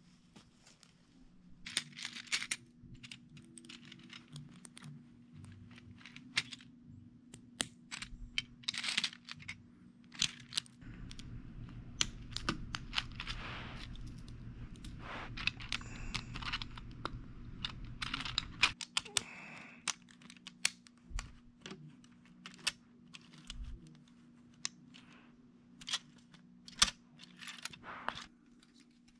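Plastic LEGO bricks clicking and clattering in irregular sharp clicks as hands sort through loose pieces and fit them together, with several short bursts of rustling.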